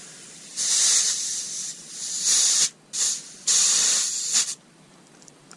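Compressed air hissing from an air line in four short bursts, lasting from about half a second to just over a second each. The hissing stops about a second before the end.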